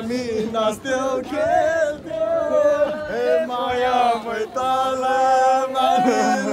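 A group of men singing a chant together in loud unison, with a long held note in the second half.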